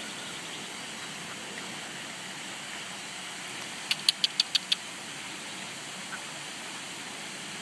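Steady outdoor background noise, broken a little past halfway by a quick run of about six sharp clicks in under a second.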